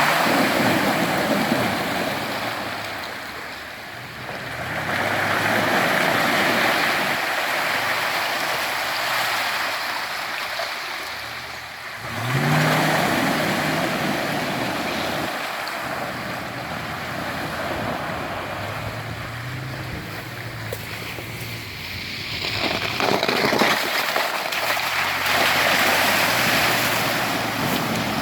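Off-road vehicle engine revving in surges, rising in pitch about twelve seconds in, while its wheels churn and splash through deep mud and water.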